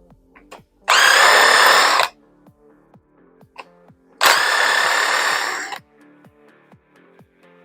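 A power tool runs in two bursts of a second or so each, a steady high whine, over background music with a steady beat.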